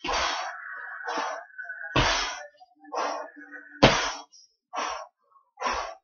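A person's sharp, forceful breaths pushed out in short bursts during exercise, about one a second. A low thud comes with two of them, loudest about four seconds in.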